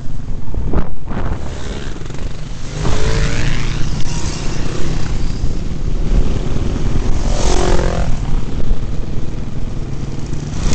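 Off-road dirt-bike engines running, heard through a helmet-mounted camera. The engine pitch rises and falls twice, about three seconds in and again near eight seconds.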